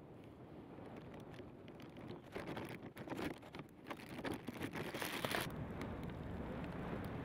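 Gusty wind rushing over the microphone, buffeting it with a low rumble; it grows louder about two seconds in and surges in irregular gusts.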